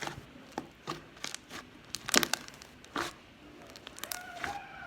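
Slime being squeezed and stretched by hand, giving irregular sticky clicks and pops, the loudest about two seconds in, with a brief squeaky tone near the end.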